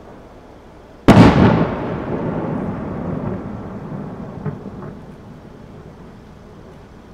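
A single aerial firework shell bursting with a loud boom about a second in, its rumble dying away over several seconds. Two faint pops follow near the middle.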